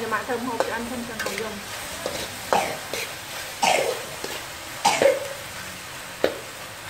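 Metal ladle stirring and scraping chicken organs in a steel wok, with a faint sizzle and several sharp scrapes and knocks against the pan. A voice is heard briefly at the start.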